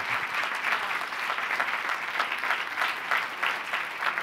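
Audience applauding steadily: many hands clapping at once, the sound of a seated crowd at the end of a talk.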